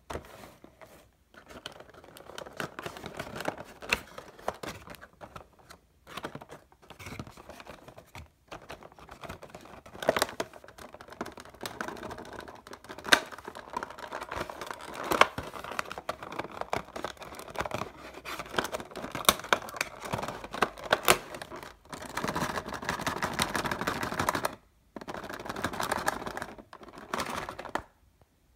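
Handling of a Funko Pop cardboard box and its clear plastic insert: scraping, rustling and sharp clicks of cardboard and plastic packaging, with two longer, louder stretches of rustling near the end.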